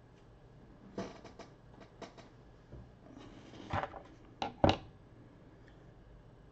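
Small hand tools such as wire cutters being handled and set down on a desktop while a thin wire is worked: a scatter of light clicks and taps, busier a little after three seconds, with two sharper clacks about four and a half seconds in.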